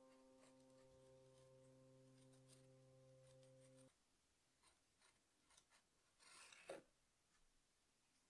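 Near silence: a held note of background music cuts off about four seconds in. Then the faint scratching of a needle tool cutting through a soft clay slab, with one louder scrape about two-thirds of the way through.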